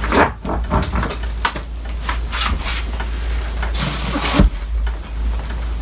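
Old Thetford Aqua Magic plastic RV toilet being lifted off its floor flange and set down into a plastic trash bag: clunks and scrapes of the plastic toilet against the crinkling bag, with a thud about four and a half seconds in.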